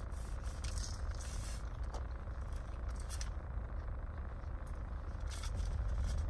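Steady low rumble of a car cabin, with a few brief rustles and crinkles of food packaging during eating.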